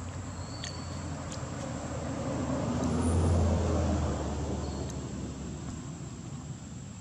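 A motor vehicle passing by with a low rumble that grows louder to a peak about three seconds in, then fades away.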